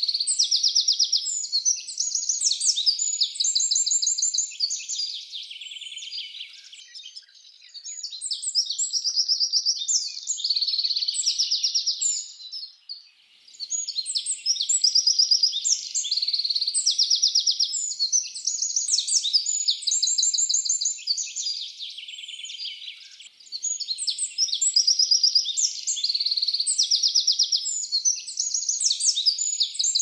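Wren singing: long, high-pitched songs of rapid trills and quick chirps, nearly continuous with a couple of short breaks.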